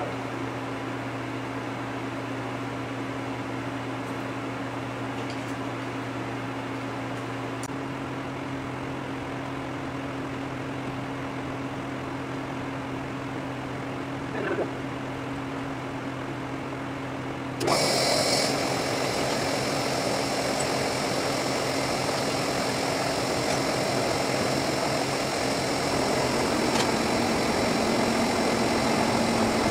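Lucas horizontal boring mill running with a steady machine hum. About two-thirds of the way through, a louder rough cutting noise with a high ring sets in suddenly and keeps going as a spade bit feeds into the cast steel coupler.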